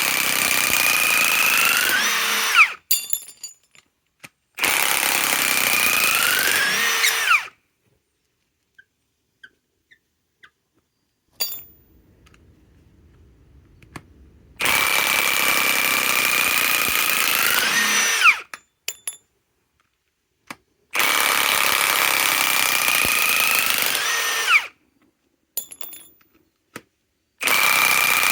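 Milwaukee M18 Fuel 2967-20 high-torque cordless impact wrench hammering as it backs out lag bolts, in five runs of about three seconds each. The pitch climbs near the end of each run, with light clanks between the runs.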